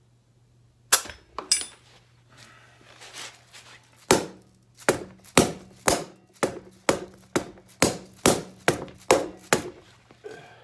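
A rubber mallet striking an inflated motorcycle front tire to help seat its bead on the rim, with the tire at about 40 psi. Two blows come about a second in, then a steady run of about a dozen blows, roughly two a second.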